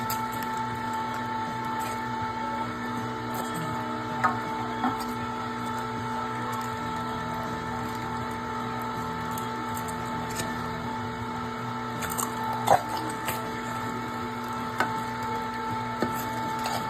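Electric meat grinder running steadily as ground venison is pushed out of its spout into a plastic freezer bag, with a few short clicks and crinkles from the bag and hand.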